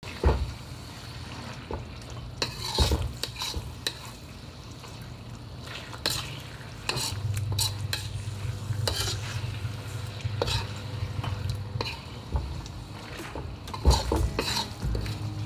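A spoon stirring pork belly and pork intestines through thick adobo sauce in a pan, with scattered clinks and scrapes against the metal over a low sizzle. A steady low hum underneath gets louder about seven seconds in.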